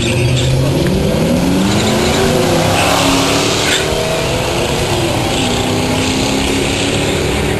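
Car engine accelerating hard through the gears on a drag run, its pitch climbing and then dropping back at each gear change, a few times over.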